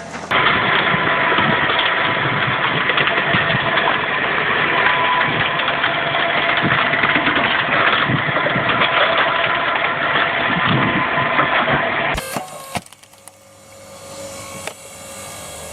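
A machine's engine running loud and steady, with some knocking through it. About twelve seconds in it cuts off abruptly to a quieter scene.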